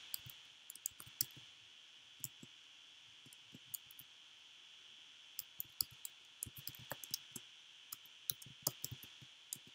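Computer keyboard keys clicking faintly as code is typed: a few scattered keystrokes at first, then quicker runs of keystrokes in the second half.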